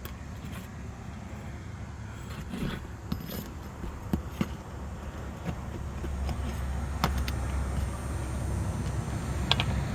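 Scattered sharp metal clicks and scrapes of a roof snake working under asphalt shingles to pull roofing nails. Under them is a steady low rumble that grows a little louder about six seconds in.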